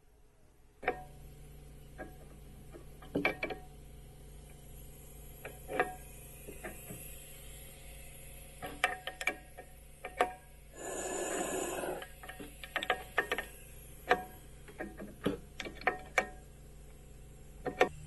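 Metal tools and pipe fittings clinking, clicking and knocking at irregular intervals as the air horn is rigged, with a hiss lasting about a second a little past the middle, over a steady low hum.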